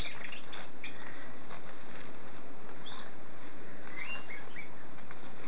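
Steady background hiss, with a few faint, brief high chirps about a second in, around three seconds in and again shortly after four seconds.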